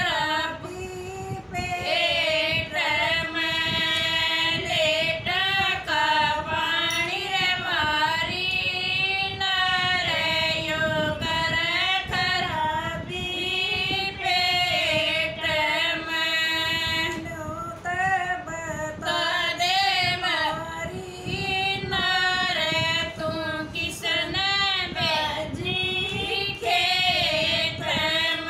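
Women singing a Haryanvi folk song together without instruments: one drawn-out melody line with long, wavering held notes and brief pauses for breath.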